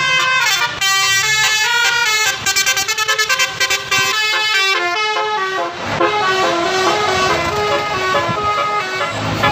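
Bus telolet horn: a bus's multi-tone musical horn playing a quick melody of stepping notes, with a stretch of rapid stuttering toots in the middle.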